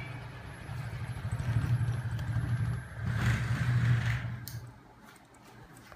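A homemade magnet-driven crankshaft machine with a heavy flywheel, powered by a small 12 V electric motor, running at speed: a low, fast, rhythmic rumble and clatter. It drops away near the end.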